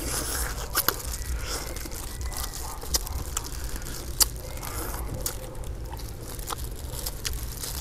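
Close-miked eating of honey-grilled chicken: chewing and biting, with scattered sharp clicks and crackles as the meat and skin are torn, over a low steady rumble.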